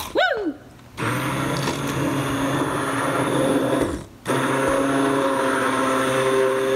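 A handheld immersion blender running in a pot of soup, its motor whirring as the blade purées cooked cauliflower. It starts about a second in, cuts out briefly around four seconds, then runs again steadily.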